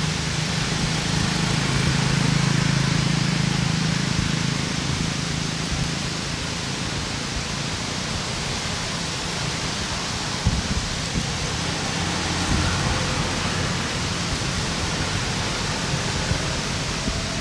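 Steady, even hiss of outdoor background noise, with a low rumble that swells for a few seconds near the start.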